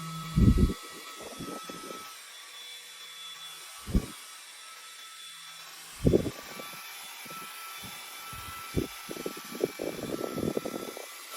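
Hands handling a mini handheld fan and its packaging: a low electric hum cuts off right at the start, then three single knocks a couple of seconds apart, then a busier stretch of small knocks and rustling near the end.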